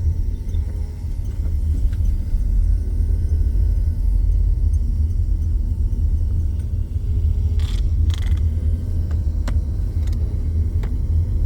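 Air from an electric fan blowing onto the microphone: a steady low rumble, with two short rustles about eight seconds in.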